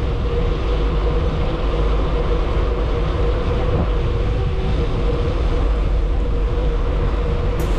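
Steady vehicle rumble with heavy wind and road noise, as heard while riding, with a constant drone underneath.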